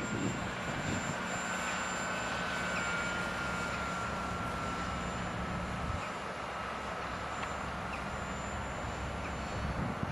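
Electric motor and propeller of an RC Blizzard motor glider in flight, a thin steady whine that slowly falls in pitch, with a lower hum that drops away about six seconds in.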